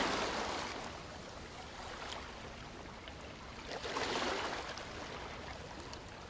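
Title-sequence sound effect: two airy rushing swells of noise, the first fading away over the opening second and the second rising about three and a half seconds in and dying down, over a faint steady low hum.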